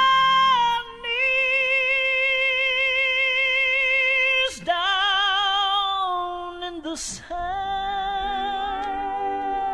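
Gospel vocal group on a 1970s record singing long held notes with vibrato, a woman's voice prominent. The held note changes a few times with brief breaks between.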